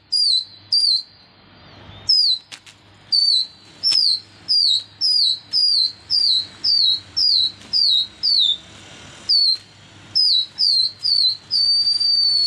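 A person whistling sharply to a flying flock of pigeons: short, high whistles that drop in pitch, repeated about twice a second, then one long whistle held and slowly falling near the end.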